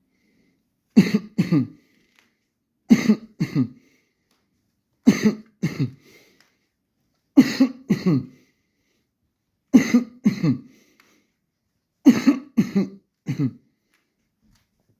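A person coughing in six bouts of two or three harsh coughs each, the bouts about two seconds apart.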